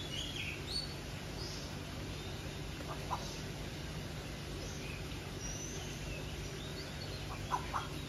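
Birds calling at dusk in scattered short, high chirps, with a few brief sharper notes about three seconds in and again near the end, over a steady low hum.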